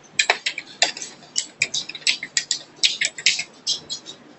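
Typing on a computer keyboard: quick, irregular key clicks in short runs.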